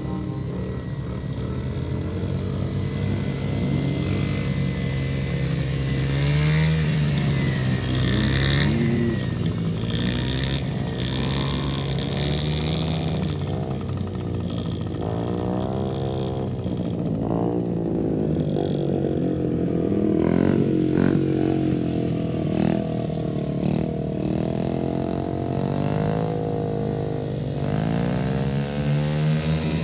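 Several small kids' dirt bikes, among them a Yamaha TTR-50 with its 50cc four-stroke single, running as they ride around. The engines rev up and down, their pitch rising and falling with the throttle.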